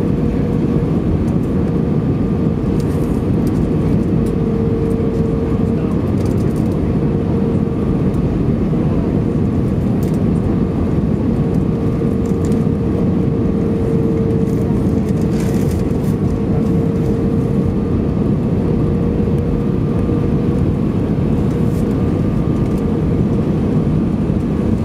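Steady cabin noise inside an Airbus A320 airliner on its landing approach: the engines and rushing air make an even roar, with a steady hum running through it.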